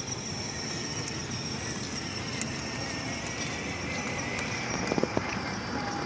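Busy outdoor square ambience: a steady background wash with faint distant voices and a thin high whine, and a short cluster of knocks about five seconds in.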